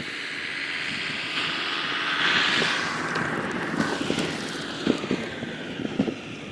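Unpowered EPP foam hand-launch glider swooshing past close by: a whoosh of air over the airframe that swells to its loudest a little over two seconds in, then falls away in pitch. Wind buffets the microphone throughout.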